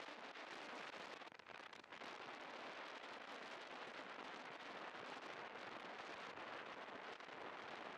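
Steady, crackly rush of wind buffeting the chest-mounted camera's microphone during a scooter ride, dipping briefly about a second and a half in; no engine note stands out.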